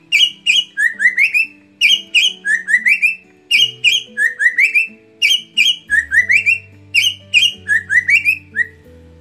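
Caged cikukua timor (cucak timor non tanduk), a friarbird, singing loud, repeated phrases of quick rising whistled notes, a phrase every second or so, stopping shortly before the end.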